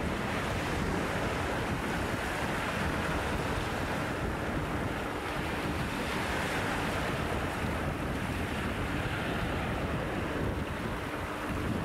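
Small waves breaking in foam over a rocky, pebbly shore, a steady rush that swells every few seconds, with wind buffeting the microphone.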